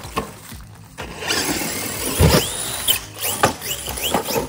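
Traxxas Grave Digger RC monster truck, its brushless motor and metal gears whining in short revs that rise and fall. A hard thud about two seconds in is the loudest sound.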